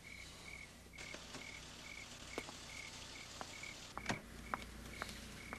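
A cricket chirping steadily in short, even chirps, about two a second, over faint night hiss, with a few faint ticks scattered through, the sharpest about four seconds in.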